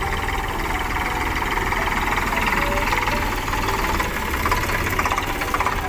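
Diesel farm tractor engine running steadily at close range as it pulls an empty grain trolley up beside a combine harvester, which runs alongside.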